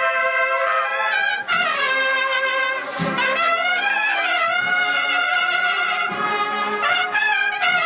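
Spanish Holy Week cornet and drum band (cornetas y tambores) playing a processional march: the cornets hold long notes in harmony, sliding between notes in places, over a few short drum strokes.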